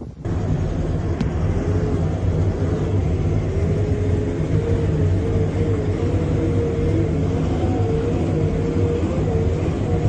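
A motor engine running steadily, with a low hum and a whining tone that wavers up and down in pitch.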